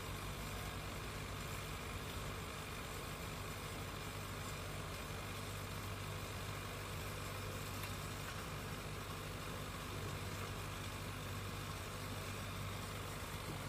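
Heavy equipment engine running steadily at one speed, a constant low hum under an even hiss.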